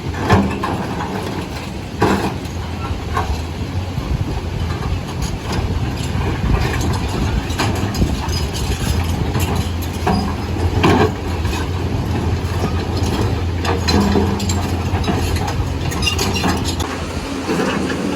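Lonking excavator's diesel engine running steadily under load, with scattered knocks throughout.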